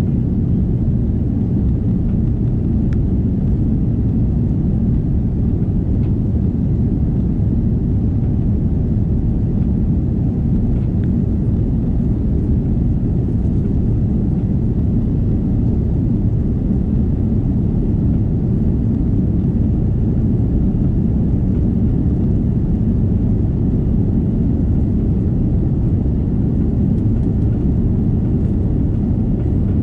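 Steady low cabin rumble inside an Airbus A330 airliner, even in level throughout with no rise or fall.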